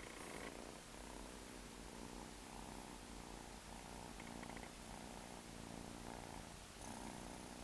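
A cat purring steadily, the purr swelling and fading in short pulses with its breathing.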